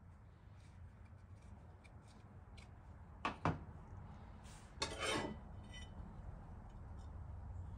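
Parts of an old brush axe handled on a steel workbench: two sharp knocks a little over three seconds in, as the wooden handle is set down, then a short metallic scrape and rattle with a faint ring around five seconds in.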